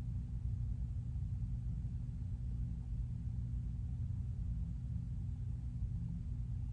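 Steady low rumble with a faint hiss above it, unchanging throughout: background room noise.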